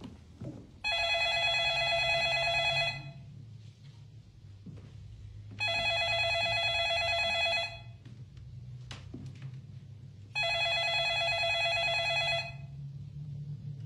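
Landline telephone ringing three times, each ring about two seconds long with a few seconds' pause between, over a low steady hum.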